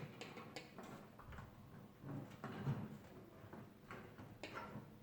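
Faint, scattered clicks and light knocks of small parts being handled, a few sharp ones spread over the few seconds.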